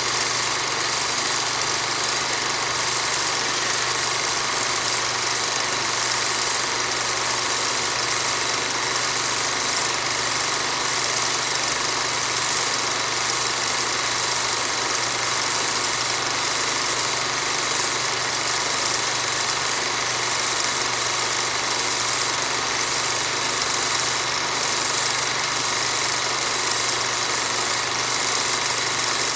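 A steady machine hum with several fixed tones over an even noise, like an engine idling, unchanging throughout.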